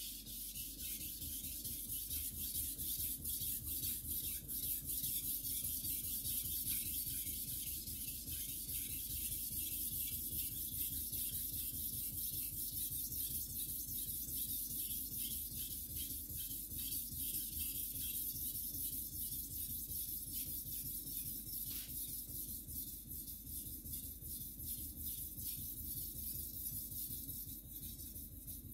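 A carbon-steel gyuto blade (Wakui white #2) being stroked over a wet waterstone: a steady hiss of scraping steel in rapid repeated strokes, starting abruptly.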